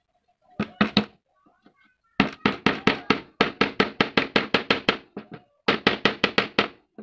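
A hammer tapping small nails into a wooden strip in quick, evenly spaced strikes, about five a second. There are a few blows about half a second in, a long run in the middle, and another run near the end.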